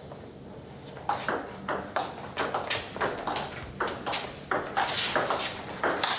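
Table tennis rally: a celluloid-type ball clicking off rubber-faced paddles and bouncing on a Donic table, in a quick run of sharp ticks, about two to three a second. It starts about a second in with the serve and goes on without a break.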